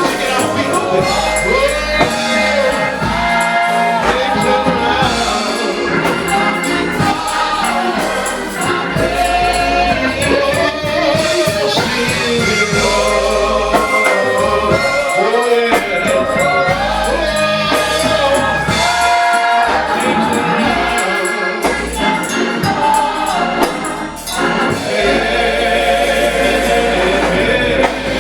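Gospel choir singing with band accompaniment and tambourine.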